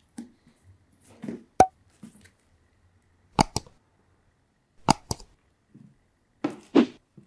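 A pair of tumbled-leather Nike Air Jordan 1 Mid sneakers being handled: several sharp knocks, two of them in quick pairs, between soft scuffs and rustles of the shoes being turned in the hands.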